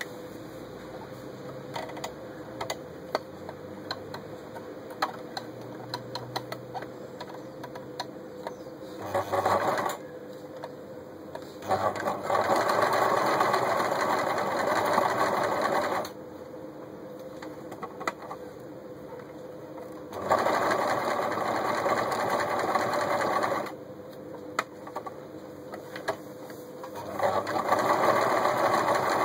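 Janome Super Automatic 348 electric sewing machine stitching through folded fabric in bursts. It runs steadily for a few seconds at a time, four times, the first run short and the last still going at the end. Between the runs are quieter stretches with scattered light clicks.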